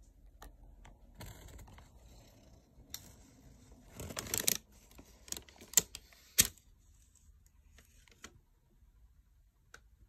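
Close handling noise: a stretch of rustling about a second in, a louder scraping rustle around four seconds, then a few sharp clicks and taps.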